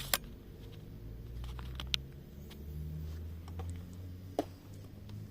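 A few sharp clicks, one just after the start, one about two seconds in and one near the end, over a steady low rumble.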